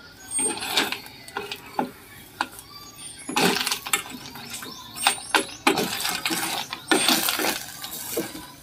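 Horn snail shells clattering against each other and the sides of a stainless steel pot as a wooden spatula stirs them: irregular runs of clicks and knocks.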